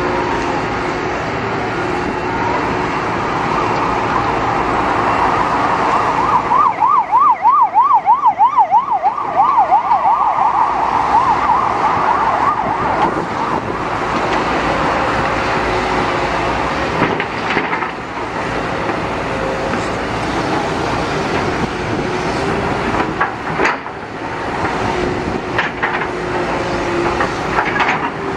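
Emergency vehicle siren over steady traffic and machinery noise: a fast warble, rising and falling several times a second, from about six seconds in until about halfway. A few sharp knocks follow later.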